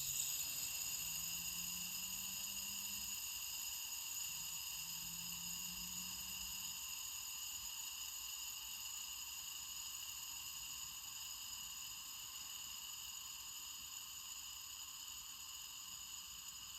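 PEI fidget spinner spinning freely on its bearing: a steady high whir that slowly fades as it winds down.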